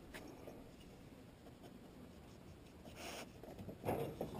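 Mostly quiet, with faint rustling and scratching: a short soft hiss about three seconds in and a few light scraping ticks near the end.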